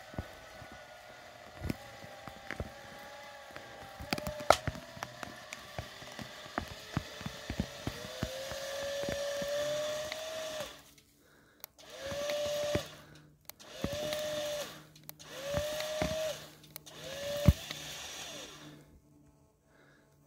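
12,000 lb electric winch motor whining steadily under load for about ten seconds as it drags a birch stump out by the roots, with sharp cracks and snaps of roots tearing. It then runs in four short bursts, each spinning up and winding down.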